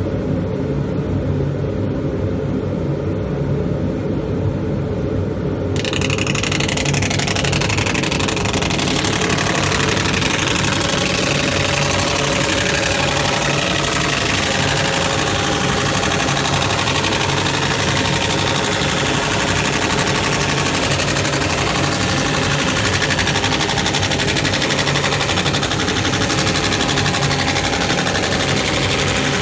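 Industrial laser system raster-engraving a chalkboard panel: a steady low machine hum, then about six seconds in a loud, even hiss sets in suddenly as the laser starts marking the surface and keeps going.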